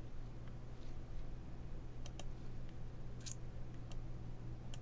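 A handful of short, sharp computer mouse clicks, scattered through the second half, over a low steady hum.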